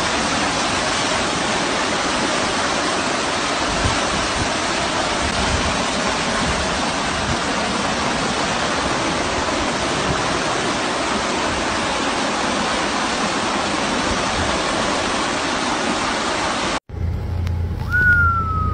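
Steady rushing of floodwater, an even unbroken noise. About three-quarters of the way in it cuts off abruptly, giving way to a low steady hum heard from inside a car in traffic, with one slowly falling tone near the end.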